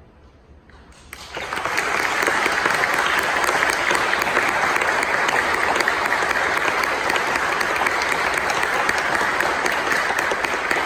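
Audience applause in a church sanctuary at the end of a choir piece, starting about a second in after a brief hush and quickly swelling to steady, full clapping.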